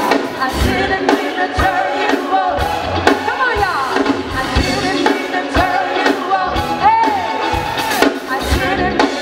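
R&B song performed live, with a steady drum beat, bass and a woman singing with sliding vocal runs.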